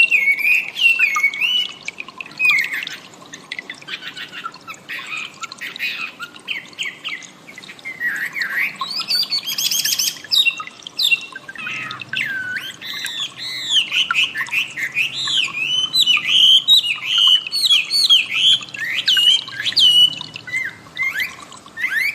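Wambi bird singing a rapid, varied song of whistled notes sliding up and down, with a burst of harsher chattering about halfway through.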